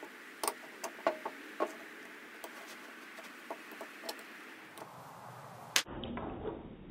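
Screwdriver prying a plastic ball cage out of a large steel ball bearing: irregular light clicks and taps of the tip against the cage and races, with one louder click near the end.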